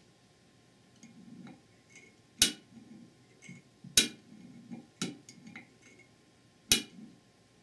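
A steel hand tool tapping and clicking against an aluminium transmission casting while small valve parts are fitted into a bore. There are four sharp metallic clicks, with lighter ticks and scrapes between them.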